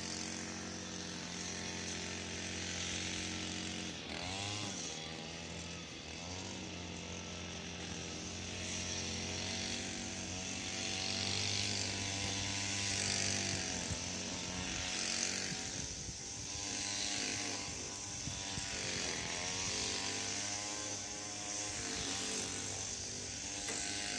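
Gas string trimmer (weed eater) engine running throughout, its pitch dropping and climbing again a few times as the throttle is let off and opened while cutting.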